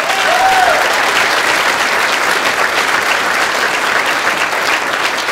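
Audience applauding, with two short cheering calls at the start; the clapping eases off near the end.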